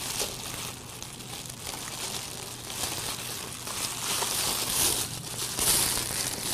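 Metallic foil ribbon strands crinkling and rustling as a handful is held and tied onto a gift box, loudest near the end.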